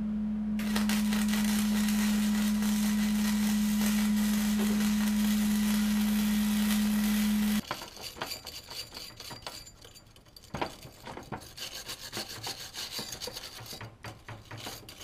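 Steady welding hum with a continuous crackling arc for about seven and a half seconds, stopping abruptly: the back side of a cracked steel seat support being welded. After that, a hand wire brush scrubs the fresh weld with scratchy strokes and a few sharp knocks of metal on the steel table.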